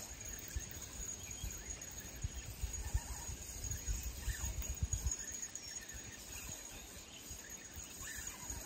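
Outdoor ambience by a lake: insects droning steadily as a thin, high, unbroken tone. Under it are low, irregular thumps and rumbles, heaviest in the first half.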